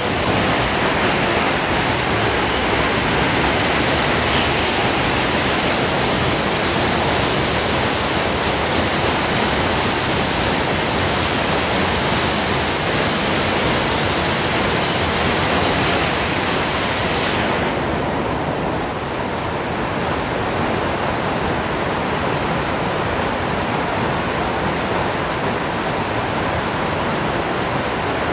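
Hailstorm: hail and heavy rain pelting down in a dense, steady roar of noise. About two-thirds of the way through, the highest hiss drops away and the sound thins a little.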